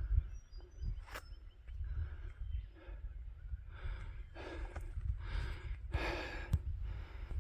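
A hiker breathing hard, a run of loud breaths that is heaviest in the second half, over a steady low rumble of wind on the phone microphone, with a couple of sharp clicks.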